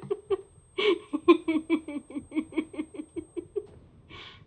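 A woman laughing hard in quick, even giggles, about six to eight a second, broken by a sharp in-breath about a second in; the giggles fade out and another in-breath comes near the end.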